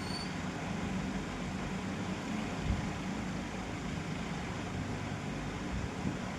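Steady low machine hum with a hiss over it. A brief high rising chirp comes right at the start, and a faint knock nearly three seconds in.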